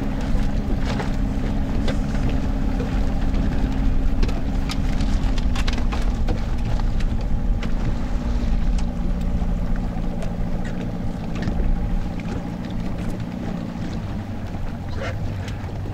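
Boat's outboard motor running steadily at low speed, easing off slightly after about twelve seconds, with scattered light clicks and knocks.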